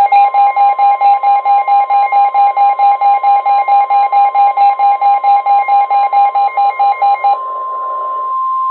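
Midland WR-120 weather radios going off for a new NOAA Weather Radio warning: the radio's own alarm beeps rapidly, about five beeps a second, over the steady 1050 Hz warning alarm tone. The beeping stops about seven seconds in, leaving the steady tone alone until it cuts off at the end, ahead of the spoken warning.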